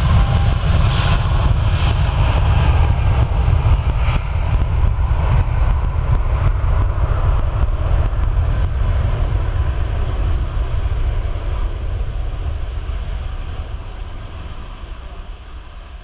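Jet airliner engines: a loud deep rumble with a faint whine on top, fading out over the last several seconds.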